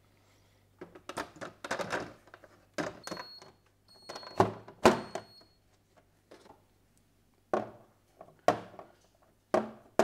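A plastic fridge door basket, patched with a 3D-printed plate, knocked and handled as it is tested and items are set back into it: a series of separate clunks and clicks of plastic and bottles.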